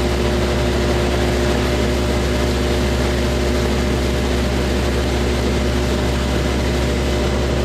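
A large engine running steadily at a constant speed, a low even drone with no changes.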